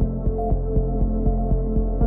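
Background music: sustained low notes under a steady pulse of about four beats a second.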